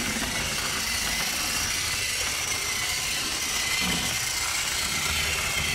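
Motorised Trackmaster Thomas toy train running along plastic track: the steady whirr of its small battery-powered electric motor, with a thin high whine.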